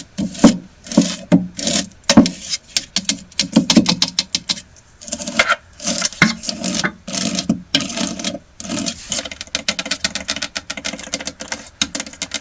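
Rapid, irregular tapping and clattering of small hard objects being handled, several clicks a second with brief pauses.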